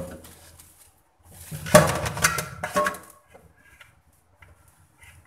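Metal cookware clattering and knocking in a stainless-steel sink as a pot and strainer are handled: a few clinks at first, then a longer run of knocks and ringing a second or so in, then scattered light taps.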